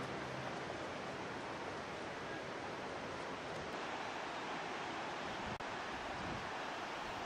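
Steady wind rushing on the microphone, with a very short dropout about five and a half seconds in.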